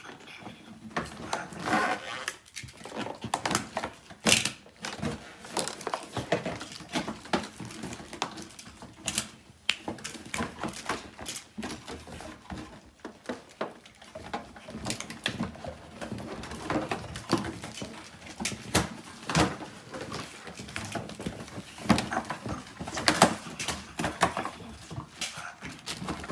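Plastic packaging and a cardboard box being handled as the Beyblade tops are worked out of it: irregular crinkling, rustling and small clicks, with a few sharper knocks.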